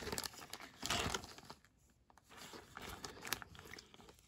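Thin clear plastic bag holding model kit sprues crinkling and rustling in irregular bursts as it is handled, with a short pause about halfway through.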